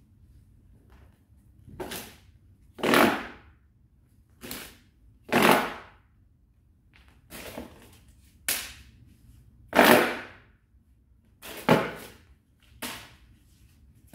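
Large tai chi fan snapped open and shut over and over, each snap a sharp crack with a brief swish trailing after it, about ten in all, roughly a second apart.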